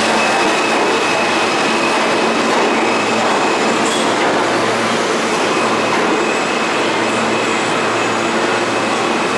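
New York City Subway R160 train pulling out of the station: a loud, steady rush and rumble of the cars running on the rails, with a steady high-pitched tone over it.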